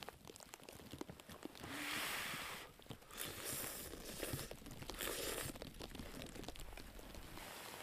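Rustling and crunching noises in several swells, with scattered light clicks.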